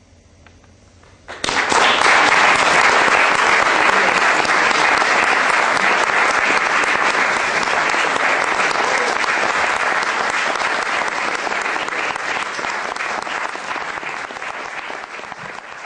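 Audience applauding after a classical guitar piece, the clapping starting suddenly about a second and a half in and tapering off near the end.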